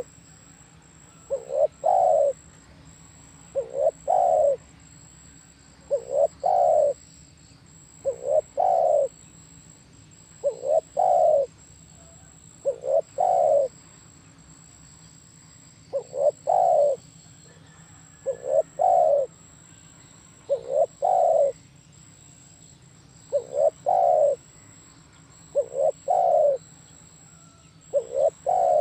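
Spotted dove cooing: a short phrase of several low notes repeated about every two seconds, with one longer pause about halfway through.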